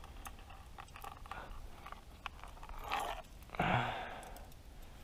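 Dry reeds and sticks crunching, with small metal clicks, as a set 330 body-grip trap is pushed into place. A short breathy grunt comes about three and a half seconds in.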